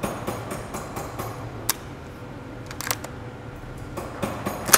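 Scattered sharp mechanical clicks and clacks from a light semi-automatic shotgun being handled. The loudest come about halfway through and near the end, over a steady low hum.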